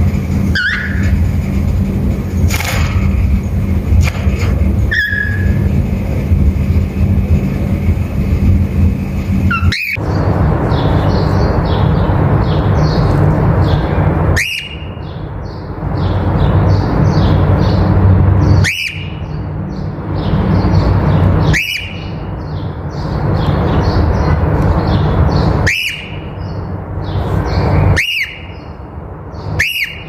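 Cockatiels giving short, sharp contact calls, the same call repeated every few seconds over a steady low hum.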